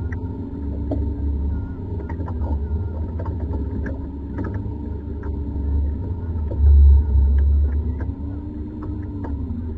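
Steady low rumble aboard a small fishing boat, with heavier low buffeting near the end, a faint hum that slowly rises and falls, and scattered light knocks.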